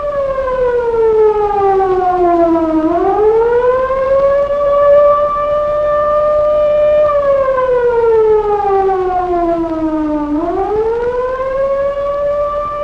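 Air-raid siren wailing: a held high tone that sinks slowly for about three seconds and then climbs back up, twice.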